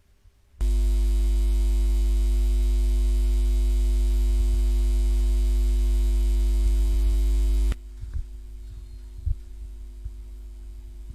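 Loud electrical mains hum: a steady low buzz with several steady tones above it. It switches on suddenly under a second in and cuts off abruptly about seven seconds later, leaving a fainter hum.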